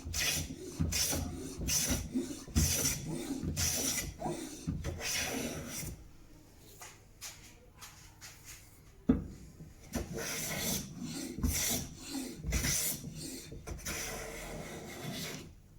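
Freshly sharpened hand plane taking shavings off a hardwood leg, a series of hissing strokes along the grain. The strokes pause for a few seconds, broken by a sharp knock, then start again and stop near the end.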